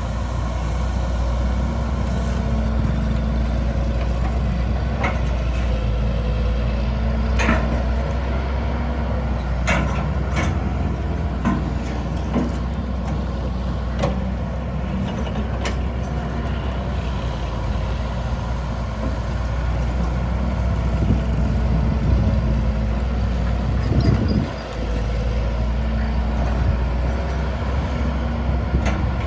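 Excavator's diesel engine running steadily, with a scattering of sharp knocks and clanks as it works.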